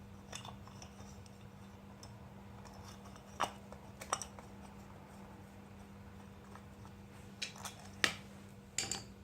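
Scattered small metal clicks and taps as the loosened bolts and the magneto side cover of an 80cc two-stroke motorized-bike engine are handled and removed, over a steady low hum.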